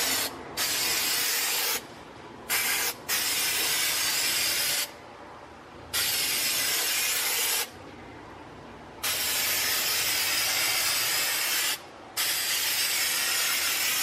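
Aerosol can of Rust-Oleum appliance epoxy spray paint hissing on and off in about seven bursts, most one to three seconds long with short gaps and one brief spurt, as a coat is sprayed onto the freezer's metal side.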